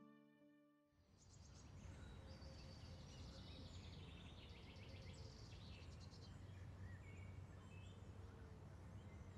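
Soft background music fades out. It gives way to outdoor park ambience: birds chirping over a steady low background rumble.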